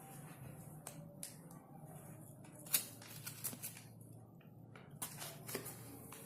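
Packaging of a phone box being handled: scattered rustles and light clicks of paper and plastic, with one sharper click a little under three seconds in.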